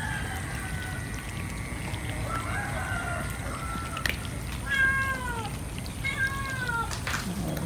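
Cats meowing while crowding together to feed: several meows, the clearest two about five and six seconds in, each falling in pitch. A steady low rumble lies underneath.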